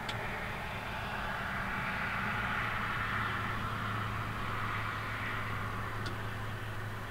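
Distant vehicle passing: a steady rushing noise that swells and then eases off, over a low steady hum.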